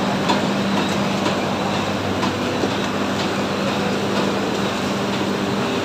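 Instant-noodle packing line running: a steady machine hum with light, regular clicks about twice a second.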